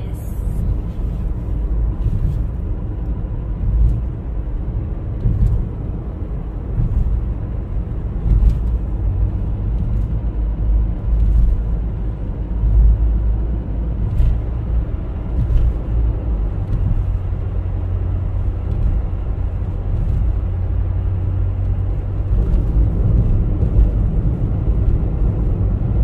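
Steady low road and engine rumble inside a moving car's cabin, with a few faint clicks.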